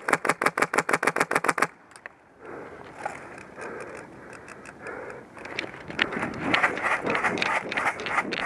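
Airsoft rifle firing one rapid full-auto burst of about fifteen shots, lasting under two seconds. After it come a few seconds of rustling with scattered clicks.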